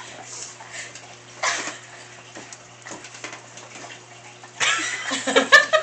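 A baby's small grunting vocal sounds and mouth noises while eating, with a steady low hum underneath; louder vocal sounds come in near the end.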